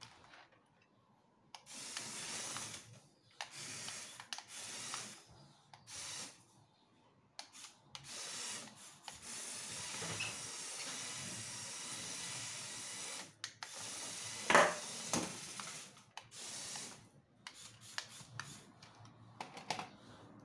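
LEGO Technic remote-control drift car driving and skidding across a tile floor in repeated bursts, its wheels hissing as they slide on the tiles. A single sharp knock comes about two-thirds of the way through.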